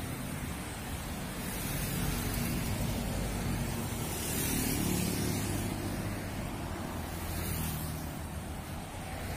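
Road traffic going past close by: cars and motorbikes, their tyre hiss swelling and fading about three times over a steady low engine hum.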